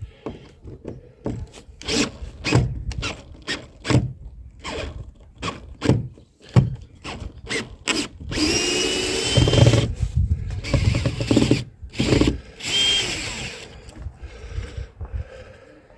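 Power drill backing screws out of an old wooden rubbing strake, running in short bursts with knocks and clicks in between; the longest whining run comes about halfway through.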